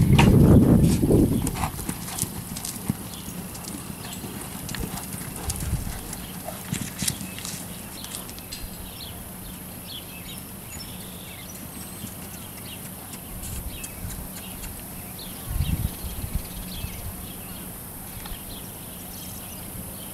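Quarter Horse gelding's hooves on soft arena dirt as it breaks out after a calf and gallops, with a loud burst of low noise in the first second or so, then scattered hoof thuds and clicks.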